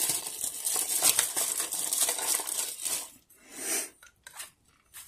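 Plastic crinkling and rustling while the new diaphragm and compression-chamber parts for the septic-tank air blower are handled, continuous for about three seconds. It then thins to a few short rustles and light taps.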